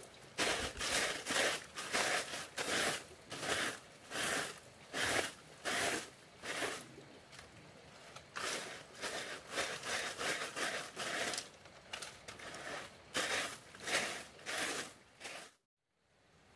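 Rhythmic rustling, crunching strokes, about two a second, that stop abruptly near the end.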